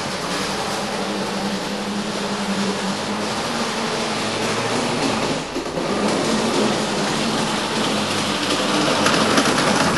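LGB G-scale model tram running on its track, its small electric motor and wheels on the rails making a steady mechanical whirr that grows louder in the last few seconds as it comes closer.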